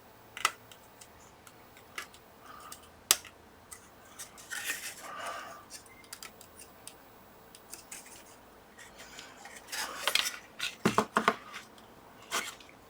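Small sharp clicks and light scraping of metal parts and hand tools being handled, as the new power switch's pins are fitted into the circuit board. There are single clicks about half a second in and around 2 and 3 seconds, a short scraping rustle near the middle, and a quick run of clicks late on.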